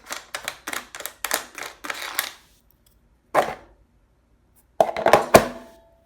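Hard plastic clicking and rattling as the air filter cover on the Generac pressure washer's engine is handled: a quick run of clicks over the first couple of seconds, a single knock a little after the middle, and a louder cluster of knocks near the end.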